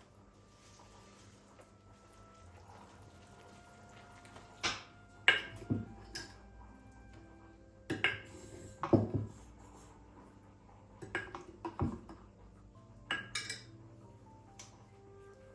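Dishes and utensils clinking and knocking in four short bursts of clatter, the way kitchenware sounds when it is handled while cooking.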